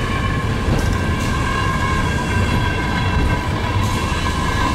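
Eizan Cable Line funicular car running uphill: a steady low rumble with a steady whine over it, and three faint clicks.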